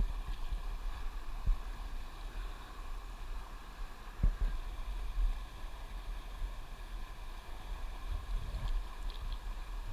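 Steady rush of a shallow river running over rocks, with low rumble from the water and wind on the microphone and a couple of dull knocks, one about a second and a half in and another about four seconds in.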